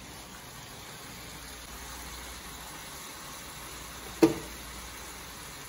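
Steady sizzle and hiss of chicken pieces frying in a pan, with a pot of pasta water boiling alongside. About four seconds in there is a single sharp clink with a short ringing tail.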